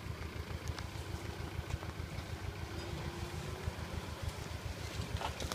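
Pickup truck engine running at low revs as the truck creeps through mud, a steady low rumble with its note rising slightly partway through.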